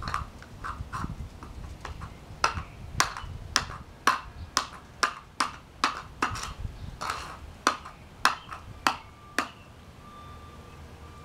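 A screwdriver stabbing repeatedly into a punctured iPhone lithium battery inside a small metal can, making a run of sharp metallic clicks about two to three a second. The clicks stop about nine seconds in.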